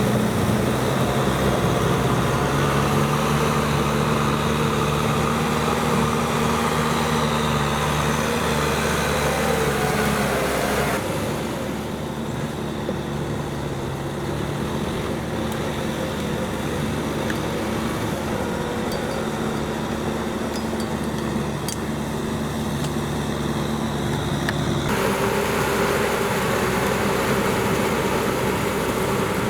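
Tractor diesel engine running steadily under load while plowing mud. The engine note changes abruptly twice, about eleven seconds in and again near twenty-five seconds.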